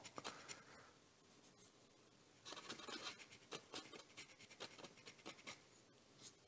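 Faint, short scratching strokes of a small hand file rubbing on a metal antenna stub, filing it down flush. The strokes come in a run in the middle, with a few near the start and one near the end.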